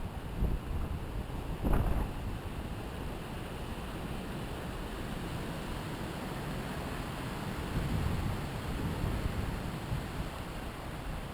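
Wind rushing through the pine and spruce treetops in steady waves, with low gusts buffeting the microphone. The loudest buffet comes about two seconds in, and another gust swells near the end.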